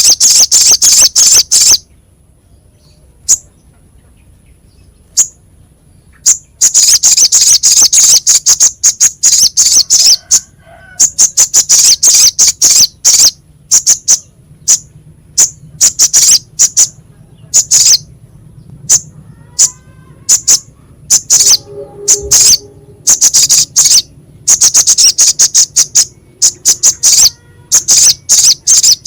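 Crimson sunbird (sogok ontong) song: harsh, sharp, rapid chattering trills in bursts of one to two seconds, with short pauses and single chips between them.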